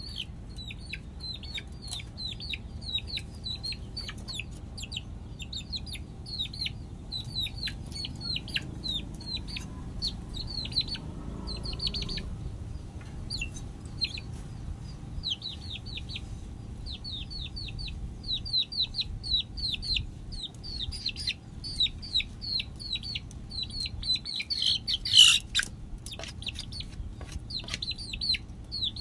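Young chicken peeping over and over in short, high, falling chirps, several a second, with one louder, harsher call near the end.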